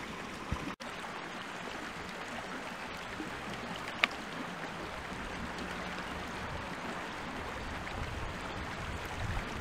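Small moorland brook burbling over rocks: a steady rush of running water. A single sharp click sounds about four seconds in.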